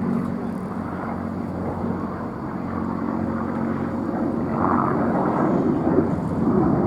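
Aircraft engines in flight, heard from a distance: a steady low hum under a broad rumble that grows louder in the second half.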